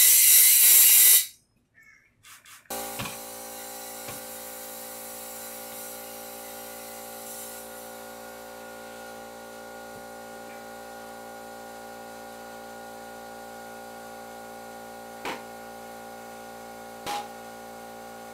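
A loud burst of compressed air hissing through a tire inflator chuck on a motorcycle wheel's valve, cutting off about a second in. After a short gap, steady sustained background music plays, with a few faint clicks.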